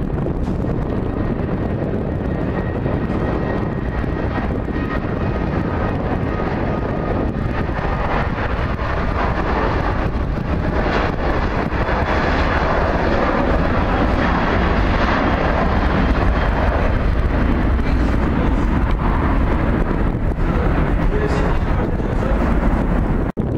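Boeing 737's CFM56 jet engines at takeoff power through the takeoff roll and lift-off: a steady jet roar with a thin high whine over it at first. The roar grows louder and brighter from about ten seconds in, then breaks off abruptly just before the end.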